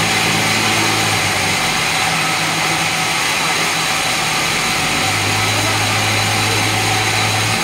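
Sawmill saw machinery running steadily: a loud continuous drone with a low motor hum under a hiss, the hum growing stronger about five seconds in.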